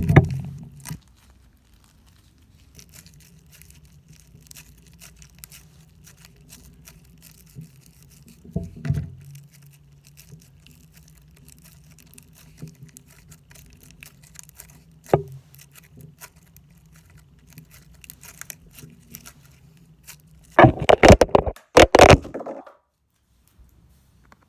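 Slime being handled by hand: a run of faint crackles and small clicks, with louder bursts about nine seconds in and again near the end, over a steady low hum.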